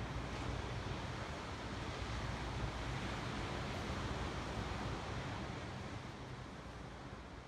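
Steady rush of ocean surf and wind, with a low rumble of wind on the phone's microphone, fading down near the end.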